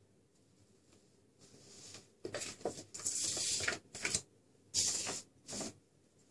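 A run of short rustling, scraping noises, about six in all, starting about two seconds in and stopping shortly before the end, as someone moves about close by.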